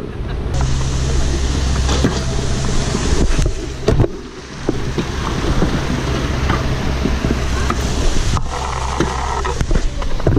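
Pro scooter wheels rolling over stone paving slabs: a steady rumble broken by many short clicks as the wheels cross the joints.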